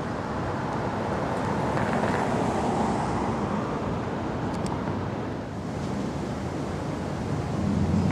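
Steady rushing street noise of traffic, with wind buffeting the microphone; a deeper engine hum comes in near the end.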